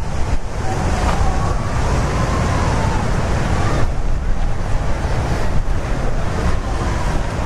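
Ocean surf breaking and washing on a sandy beach, with wind buffeting the microphone in a heavy low rumble.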